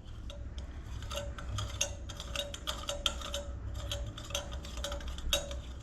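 Irregular light ticking clicks, a few each second, over a steady low electrical hum, with a faint tone that comes and goes.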